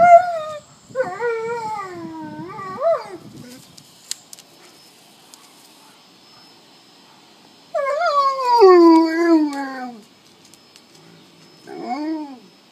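A husky howling along to an ice cream van's tune: a wavering howl in the first few seconds, a long howl falling steadily in pitch about eight seconds in, and a short rising-and-falling howl near the end.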